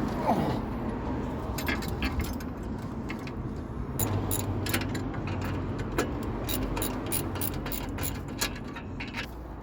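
Hand tools and metal parts clinking and rattling in a quick irregular series of sharp taps and ratchet-like clicks, over a low steady hum.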